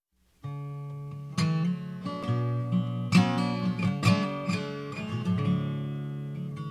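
Background music: the intro of a song, strummed acoustic guitar chords that start about half a second in and grow louder about a second later.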